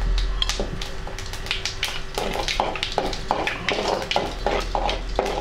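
Fennel seeds and cardamom crackling and sizzling in hot oil in a metal kadai. From about two seconds in, a metal ladle stirs and scrapes the pan in a steady rhythm of a few strokes a second.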